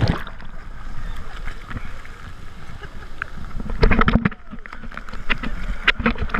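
Ocean surf heard with the microphone dipping in and out of the water: muffled underwater gurgling at first, then splashes as a breaking wave washes over it about four seconds in and again near the end.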